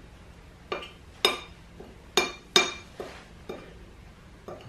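Metal spoon clinking against a ceramic plate while stirring dry seasoning: about seven sharp clinks at irregular intervals.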